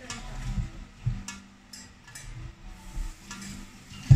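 Kitchen handling sounds: scattered light clicks and knocks of utensils and dishes, with one sharp knock near the end.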